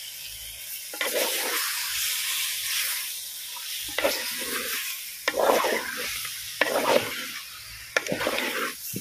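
Marinated chicken sizzling in hot oil with fried onions and masala, being stirred: a steady sizzle with repeated scrapes of the stirring spoon against the pan.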